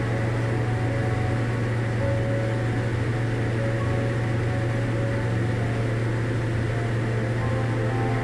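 Diamond DA40 light aircraft's engine and propeller running steadily in level cruise, heard inside the cabin as a constant low hum.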